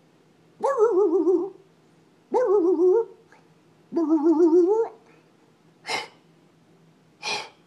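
Pet dog making odd vocal noises: three wavering, warbling howl-like moans of about a second each, then two short breathy huffs near the end.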